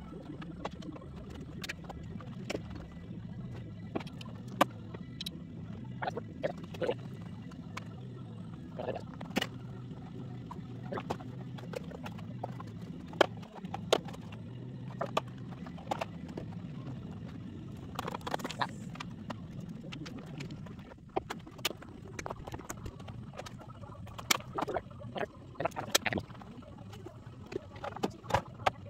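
Rapid, sped-up clatter of tools and debris being picked up and tossed about on a minivan's bare cargo floor: many sharp knocks and clicks over a low steady hum.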